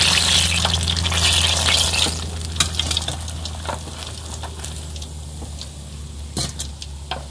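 Battered banana fritters deep-frying in hot oil, sizzling, loudest in the first two seconds and then fading. A few light clicks of chopsticks against the metal pan and strainer come as fritters are lifted out, over a low steady hum.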